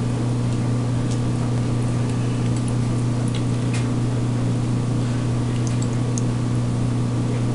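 A steady low hum, unchanging in level, with a few faint soft clicks over it.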